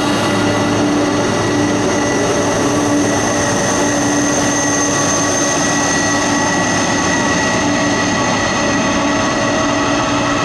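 Jet engines running steadily: a loud, even rushing noise with steady whining tones over it.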